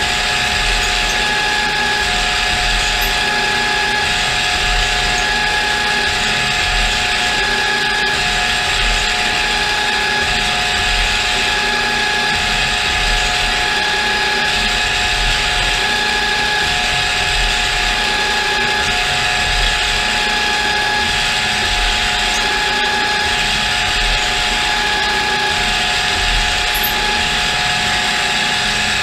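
CNC milling machine running a posted program and cutting metal, with a steady spindle whine over the noise of the cut.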